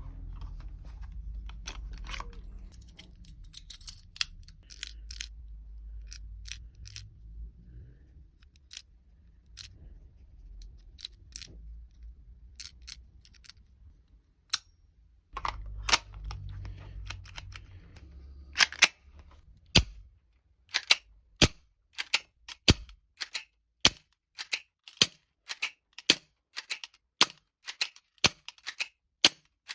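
Umarex Beretta 92 spring-powered airsoft pistol: scattered clicks over a low rumble at first, then from about two-thirds of the way in a steady series of sharp snaps, roughly one to two a second, as it is fired shot after shot.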